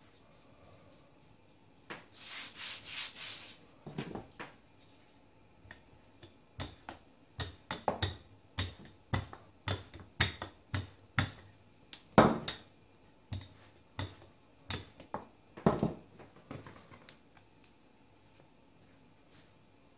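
Hands briefly rubbing over floured dough, then a wooden rolling pin knocking down onto the dough on the worktop about twenty times, roughly twice a second, pressing the butter block into the croissant dough for lamination.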